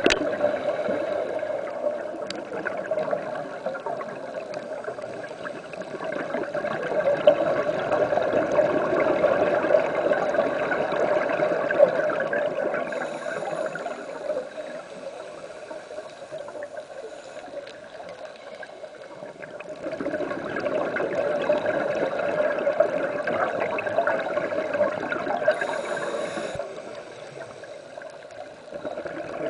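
Underwater sound of a scuba diver's regulator: gurgling exhaust bubbles that swell and fade in two long waves, with quieter stretches and a brief higher hiss between them.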